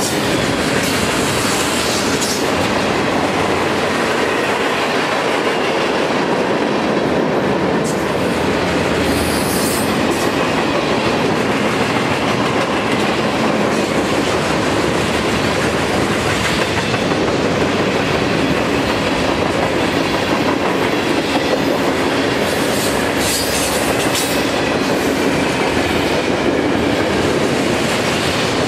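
Mixed freight train of hoppers, boxcars and tank cars rolling past: a steady rumble and clatter of steel wheels on the rails, with a few brief high-pitched screeches from the wheels now and then.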